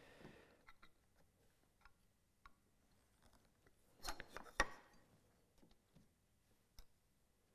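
Mostly quiet workshop handling: faint taps and ticks, with two sharp clicks about four seconds in as a steel combination square is set down against a wooden block.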